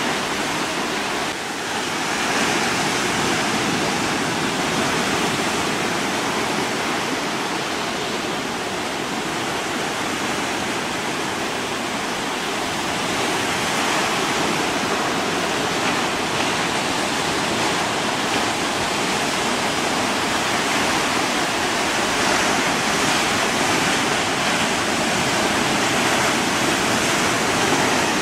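Steady rushing noise with no distinct breaks or impacts, a little lower briefly about a second in.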